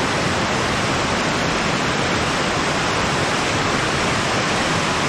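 River rapids rushing over rocks, a steady, loud rush of water.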